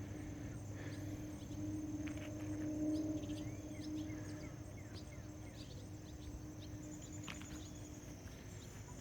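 Outdoor ambience: a steady low hum, like a distant motor, that swells about three seconds in and eases off, under a steady high insect buzz and scattered short bird chirps.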